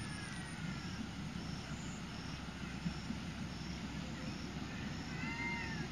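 Steady low rumble of a ZDM-5 narrow-gauge diesel locomotive approaching with its train, growing slightly louder near the end. A few high whistle-like sliding calls come in the first second and again near the end, over a faint high chirp repeating about three times a second.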